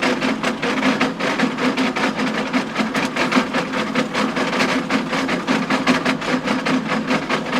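Power harrow tines clattering on stones in wet soil: a dense, rapid, irregular clacking that goes on without a break, over the steady hum of the John Deere tractor's engine driving it.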